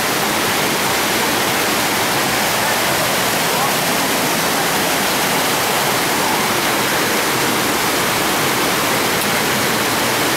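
Waterfall pouring: a loud, steady, unbroken rush of falling water.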